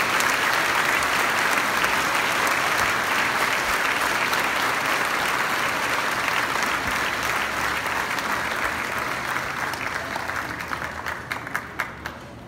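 Large crowd applauding steadily; the applause thins out over the last couple of seconds and ends in a few scattered claps.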